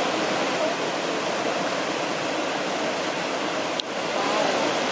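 Whitewater rapids of the Soča river, an Alpine mountain river, rushing steadily. There is a short click and a brief dip in level about four seconds in.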